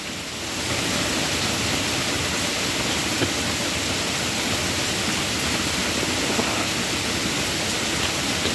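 Steady rainfall, with rainwater pouring off the side of a house; the rushing sound swells slightly in the first second, then holds even.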